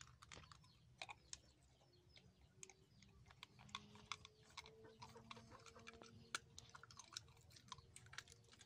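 A dog chewing food off the ground: faint, irregular clicks and crunches of its teeth, one to a few a second.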